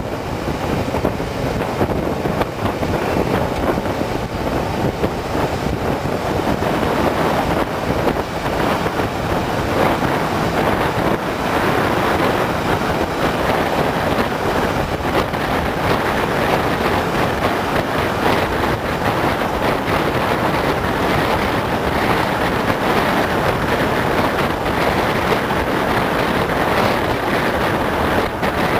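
Steady wind and road noise from a moving vehicle, with wind rushing over the microphone; a little fuller after about eight seconds.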